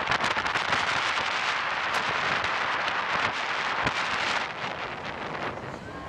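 Wind buffeting the camera microphone, a dense crackling rush that eases off about four and a half seconds in.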